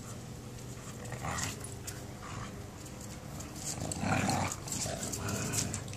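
Huskies playing: a few short growly grumbles, the loudest about four seconds in, with claws ticking on stone pavers.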